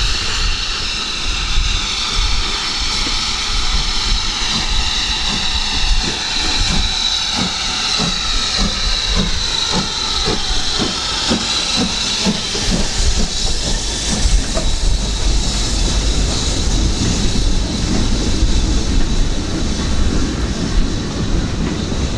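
Steam locomotive working, with a loud steady hiss of steam. For several seconds in the middle, rhythmic beats come about twice a second.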